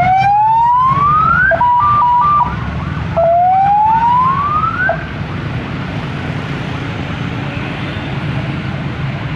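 Police vehicle's electronic siren: two rising whoops with a short burst of two alternating tones between them, cutting off about five seconds in. Idling and passing engine noise continues underneath.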